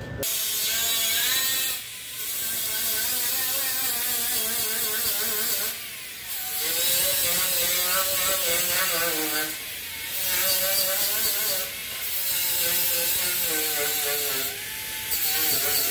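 Electric angle grinder grinding the rusty steel body panel by a pickup's front wheel arch. It runs with a hissing, wavering whine as it bites the metal, easing off briefly several times.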